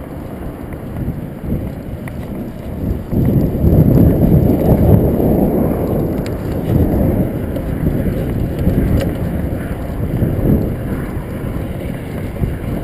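Wind buffeting the microphone of a camera on a moving road bike, a gusty rumble that swells strongest about three to six seconds in, with tyre and road noise underneath.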